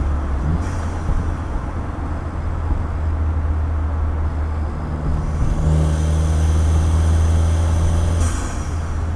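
2015 Ford Fiesta ST's turbocharged 1.6-litre four-cylinder and exhaust running steadily while driving, with intake noise from a cold air intake. Near the end there is a short rushing hiss as the engine note briefly drops.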